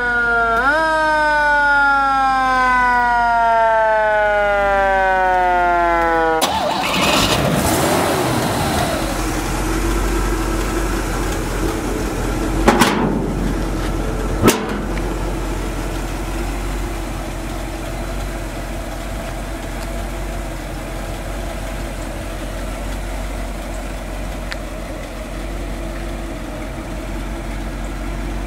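A siren on a 1956 Cadillac Series 75 limousine winding down in pitch, briefly wound up again near the start, then cut off after about six seconds. After that the car's engine runs steadily, with two sharp clicks around the middle.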